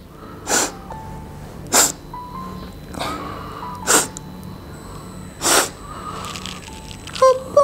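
A child's voice crying: sharp breathy sniffs and sobs every second or two, with a short whimper near the end, over soft background music.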